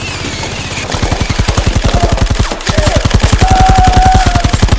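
Rapid automatic fire with a machine-gun sound: a fast, even train of shots with heavy bass that grows louder about a second in and keeps going without a break.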